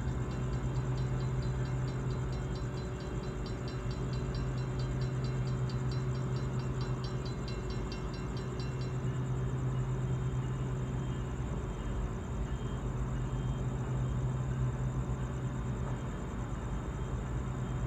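Norfolk Southern freight train running past with a steady low drone and rumble. A fast, even ticking, about three or four a second, runs through the first half and stops about halfway.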